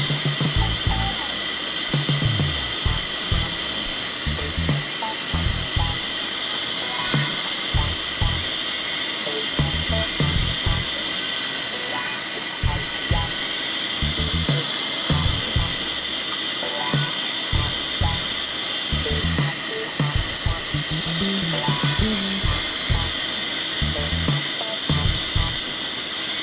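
A CNC machining centre's spindle whining steadily at high speed while it mills a mould, heard under background music with a thudding bass line.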